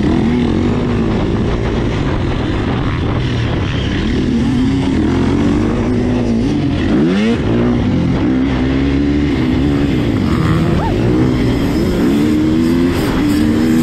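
Husqvarna motocross bike's engine revving up and down under the rider's throttle as it accelerates and shifts. The revs drop sharply and climb again about seven seconds in.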